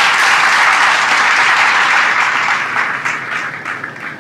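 Audience applause, dense and steady, thinning out from about two and a half seconds in to a few scattered claps that fade near the end.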